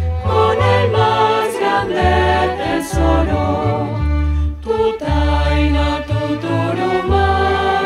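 A choir singing a Christmas carol, accompanied by a string ensemble of violins, cellos and double bass. Sung lines with vibrato sit over deep bass notes that change about every second.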